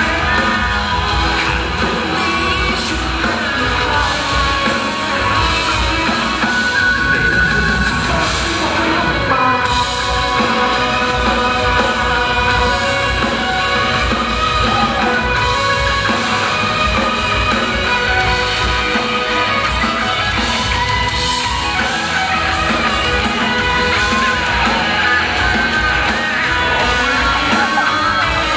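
Live rock band playing a song, a male singer singing into a microphone over drums and amplified instruments, heard through the venue's PA.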